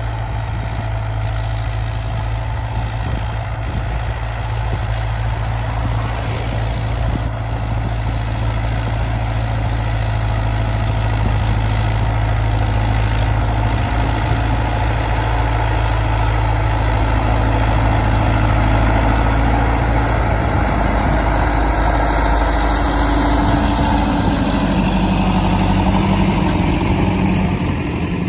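Fortschritt ZT 323 tractor's six-cylinder diesel engine running steadily under load while pulling a plough through the soil, a deep even hum that grows louder as the tractor approaches and passes close by near the end.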